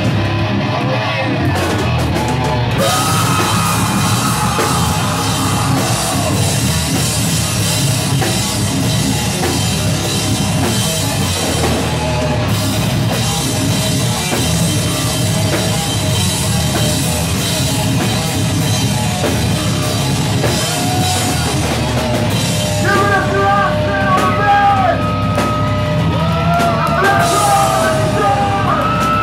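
Live heavy metal band playing loud: distorted electric guitars, bass and drum kit. A high, wavering melody line rises out of the band over the last several seconds.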